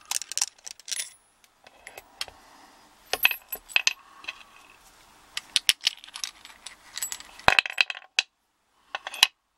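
Small metallic clicks and clatter of a pin-tumbler padlock core being taken apart on a pinning board, its little pins and springs tapping and dropping out. The clicks come in irregular clusters with a short pause about a second in and another near the end.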